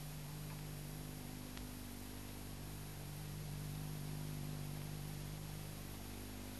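Steady low electrical hum over even hiss from a deteriorated VHS tape transfer, with no other sound.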